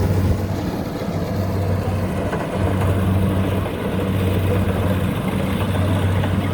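Rice combine harvester's engine running with a steady low drone, which eases for about a second around two seconds in and then comes back.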